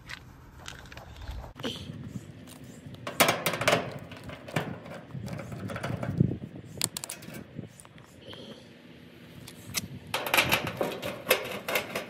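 A screwdriver backing out the screws on the sheet-metal cabinet of an outdoor air-conditioner condenser unit: scattered metallic clicks, taps and scrapes that come in bunches, busiest near the end.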